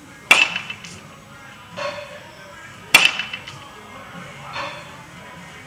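Baseball bat striking tossed baseballs during batting practice: two sharp cracks with a short ring about two and a half seconds apart, and a third right at the end. A fainter knock follows each hit about a second and a half later.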